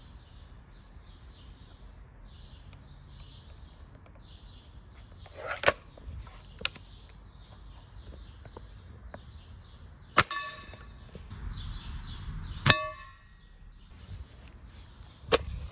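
Sharp cracks of a suppressed .177 air rifle and pellets smacking a metal pan, about five sharp hits in all. Two of the hits ring briefly with a metallic clang. Birds chirp faintly in the background.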